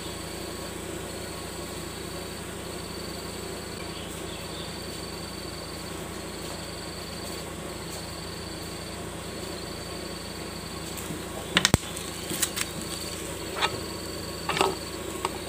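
Two-stroke petrol mix trickling from a plastic bottle into a brush cutter's plastic fuel tank. Over it runs a steady insect chirring, a high note with short regular breaks. A few sharp clicks and knocks come near the end.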